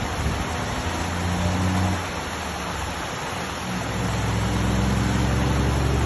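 Muddy floodwater rushing and churning over boulders in a rain-swollen wadi stream, a steady dense roar. A low rumble under it swells about a second in and again from about four seconds in.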